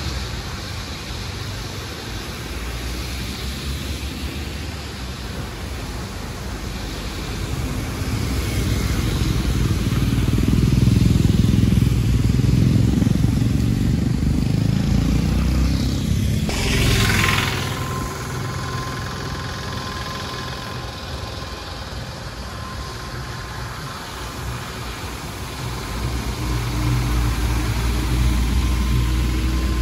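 Bus engine running with road noise. It swells louder about ten seconds in and eases off again after about eighteen seconds, with a short hiss a little past the middle.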